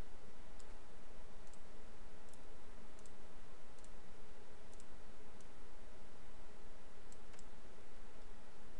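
Computer mouse clicking: about nine faint, scattered clicks over a steady background hiss.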